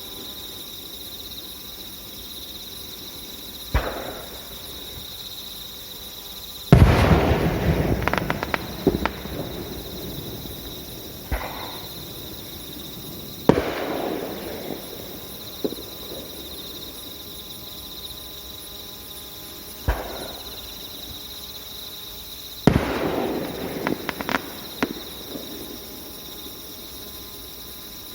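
Aerial fireworks shells bursting one after another, about seven bangs a few seconds apart, the biggest ones followed by crackling. Crickets chirp steadily underneath.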